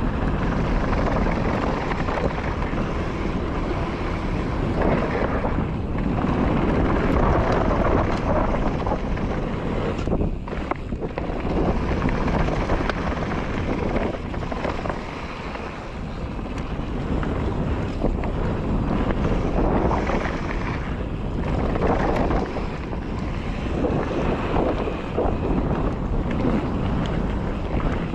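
Wind rushing over the microphone with tyre and trail noise from a mountain bike riding down a trail, swelling and easing irregularly with a couple of brief lulls.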